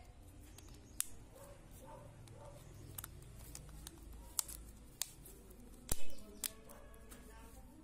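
Plastic clips of a Samsung smartphone's housing snapping into place as fingers press around its edges: several sharp clicks, the loudest about six seconds in. Faint background music underneath.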